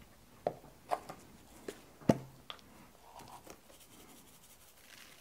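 Salt and pepper containers being handled on a wooden work table: a string of light clicks and knocks as one is set down and another picked up. The loudest is a single knock just after two seconds in, with a brief low ring.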